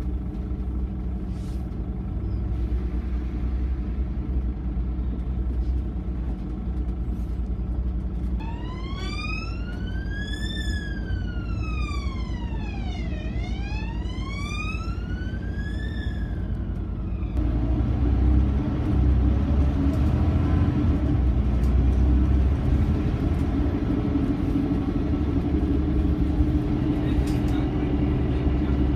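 Scania OmniCity bus's engine and drivetrain rumbling, heard from inside the passenger saloon, growing louder about two-thirds of the way through. In the middle, for about nine seconds, an emergency vehicle's wail siren rises and falls twice in pitch, then cuts off abruptly.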